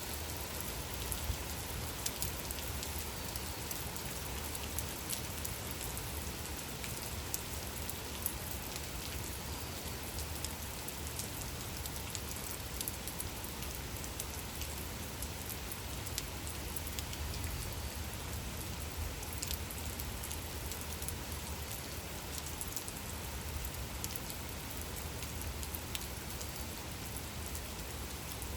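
Gentle rain falling steadily, with many separate drops ticking sharply on a surface over an even hiss.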